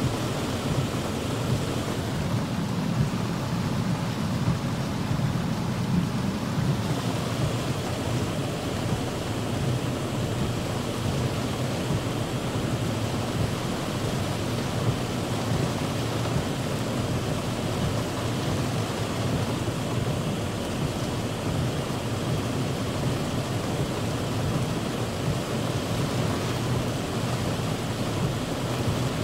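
Heavy rain pouring steadily onto a car's roof and windshield, heard from inside the car as a dense, even wash with a deep low rumble.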